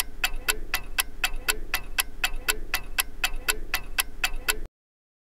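Ticking clock sound effect marking a countdown, a quick, even tick of about four a second that cuts off suddenly about four and a half seconds in.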